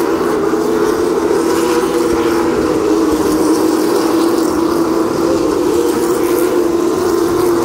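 A field of stock cars racing around a short oval: a loud, steady drone of many engines at speed.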